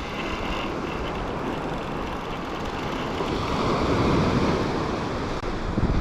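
Ocean surf washing onto the beach, a steady rushing noise that swells about four seconds in, with wind buffeting the microphone.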